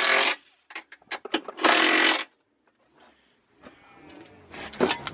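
An impact wrench runs in two short bursts, tightening the bolts that hold the engine in place during the swap, with clicks and clanks of tools against metal between the bursts and near the end.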